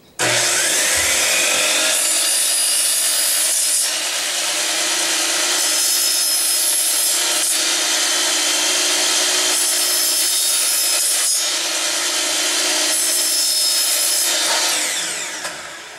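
Electric miter saw starting up abruptly and running at speed, its blade cutting a PVC pipe in several passes, then winding down near the end.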